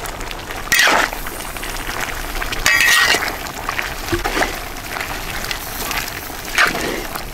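Curry bubbling in a large pot over a wood fire, with a metal ladle clinking and scraping against the pot a handful of times.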